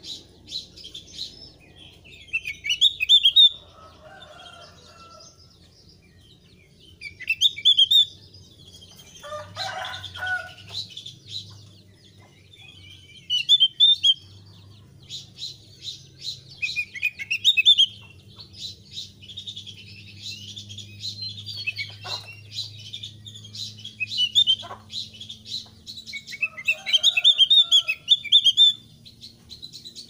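Javan grey-throated white-eye (opior Jawa, thick-browed form) in full song: loud, short high phrases repeated every few seconds over continuous softer twittering. A lower-pitched call sounds once, about ten seconds in.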